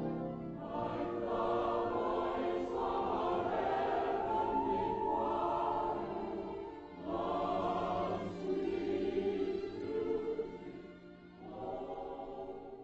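Background music: a choir singing slow, held phrases, with two short breaks between phrases.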